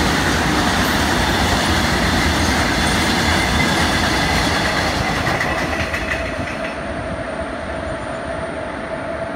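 Freight train of tank wagons rolling past on the rails, with the clatter of wheels running steadily as the last wagons and the brake van go by. About seven seconds in the sound changes to a WAG-7 electric locomotive passing, with a steady hum over its wheel noise.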